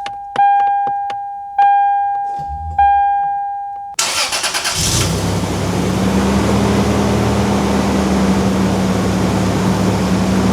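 1997 Toyota 4Runner SR5's dashboard warning chime dings four times, about one ding a second, over a steady ticking. About four seconds in, the engine catches after a brief crank and settles into a steady idle.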